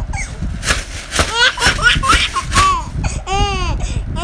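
Baby laughing in repeated short bursts, with a longer, high-pitched squeal of laughter that rises and falls about three seconds in.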